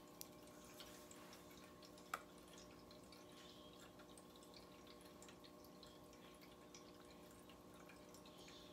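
Near silence: a faint steady electrical hum of room tone, with scattered faint ticks and one sharper click about two seconds in.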